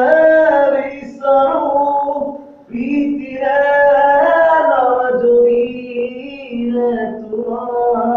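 A man singing unaccompanied in a tiled bathroom, holding long melodic notes in several phrases with short pauses for breath between them.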